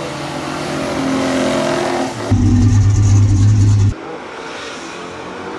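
Classic muscle car engines accelerating on a drag strip, edited from several shots: first a climbing engine note, then about two seconds in an abrupt cut to a louder, deeper engine sound, and at about four seconds another cut to engines heard more faintly.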